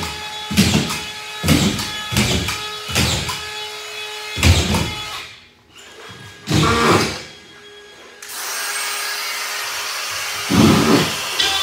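A series of irregular knocks and thumps about a second apart, then, from about eight seconds in, the steady rushing run of a cordless collated drywall screw gun's motor spinning free, with one more knock near the end.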